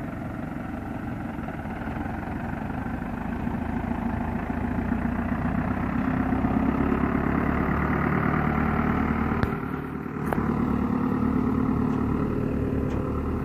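Case JX95 tractor's diesel engine running steadily as it pulls a manure trailer past close by, getting louder about halfway through.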